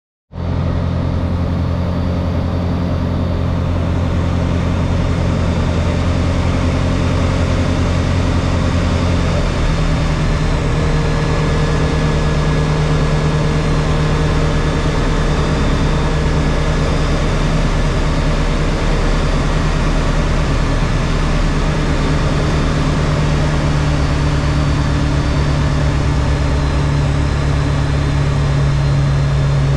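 Diamond DA20 light aircraft's piston engine and propeller droning steadily in flight, heard from inside the cockpit. The engine's tone changes about nine seconds in.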